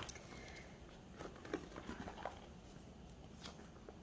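Plastic sleeves of a ring binder turned and handled, giving a few faint crinkles and light taps.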